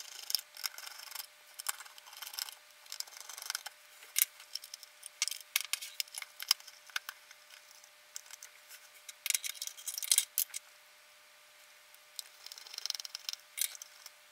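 Plastic housing and circuit boards of a Zoom 9002 multi-effects processor handled as the unit is taken apart by hand: irregular clicks, taps and scrapes of plastic parts knocking and rubbing, busiest about a third of the way in and again near two thirds, with a short lull near the end.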